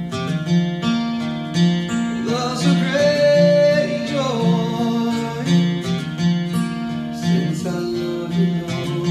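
Acoustic guitar played in a steady repeating rhythm, with a voice coming in about two seconds in to sing a long line that bends in pitch for a couple of seconds.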